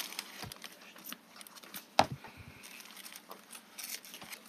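Faint rustling and small clicks of paper die-cut pieces being handled and pressed onto a scrapbook page, with one sharper tap about two seconds in.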